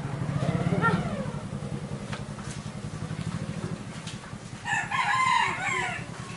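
A rooster crows once, loudest about five seconds in, over a steady low hum.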